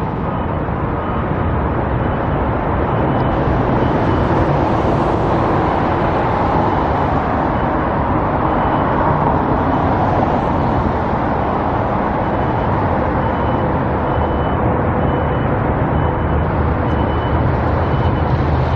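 Steady road traffic noise, an even rumble of passing cars and trucks with no single vehicle standing out.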